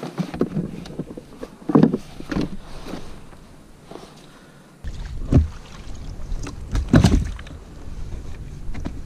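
Handling knocks and rustles as a small sea bass is unhooked from a lure in a landing net on a plastic sit-on-top kayak, with loud knocks about two, five and seven seconds in. A low steady rumble comes in about five seconds in.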